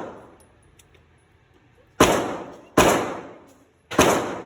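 Three handgun shots fired in quick succession, each a sharp crack with an echoing tail. They start about two seconds in, after a quiet pause.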